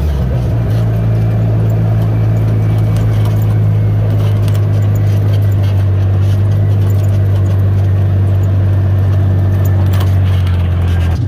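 An engine running steadily at constant speed close by, with a low, even drone that drops away near the end.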